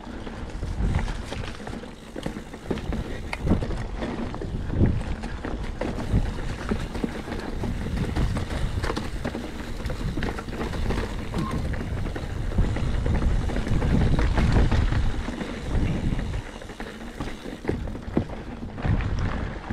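Mountain bike rolling fast over a rocky trail: a steady low rumble of wind on the microphone and tyres on rock, broken by frequent knocks and rattles as the bike hits stones, with a louder stretch about two-thirds of the way through.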